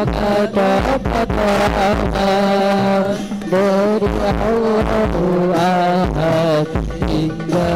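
Devotional sholawat singing: a solo voice carrying a wavering, ornamented melody over regular hand-drum beats and a steady low note.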